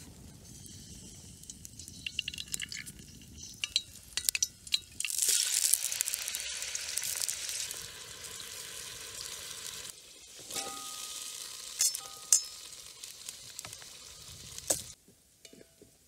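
Hot oil sizzling and crackling in an aluminium pot over a campfire, growing louder about five seconds in, with salt poured into the oil about halfway through. The sizzle cuts off suddenly near the end.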